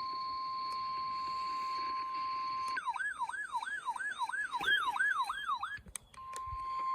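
Weather radio warning alarm, a steady single tone of about 1050 Hz. About three seconds in it is replaced by an electronic siren wail sweeping up and down about three times a second. That lasts about three seconds, then after a short gap the steady tone returns briefly near the end.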